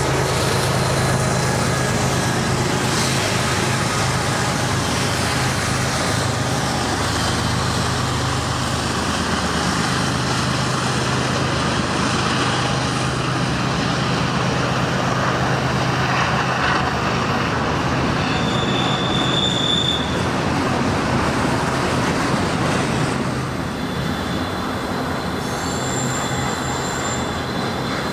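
Freight train rolling past, a steady loud rumble and rattle of wheels on the rails. A low engine drone drops away about a third of the way in, and high thin wheel squeals come in short stretches in the second half.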